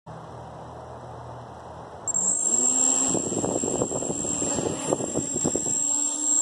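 QAV250 quadcopter's four brushless motors (Emax MT2204) with 5040 bullnose propellers spinning up about two seconds in: a buzz that rises in pitch alongside a steady high-pitched whine, then wavers with changing throttle before settling into a steady buzz near the end.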